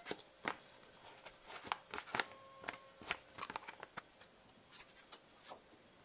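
Cubes of butter landing in a frying pan and a wooden spatula knocking and scraping against the pan: a series of light taps and clicks, thick for the first four seconds and then sparse.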